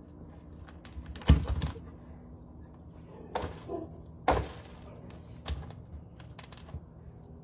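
Irregular knocks and clatters over a faint steady background, with two loud bursts about a second and about four seconds in and a few smaller ones between.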